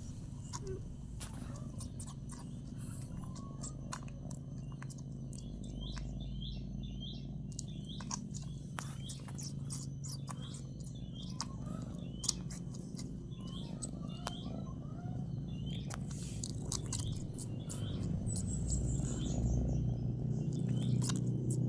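Faint, steady low rumble from resting cats, a sleeping cat's snoring, with small birds chirping: short sharp chirps throughout and a quick falling run of high notes near the end.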